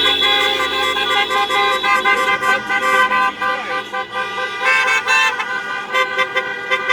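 Truck and car horns honking, several at once, their held tones overlapping and changing as vehicles pass, with one strong horn blast near the start and another about five seconds in.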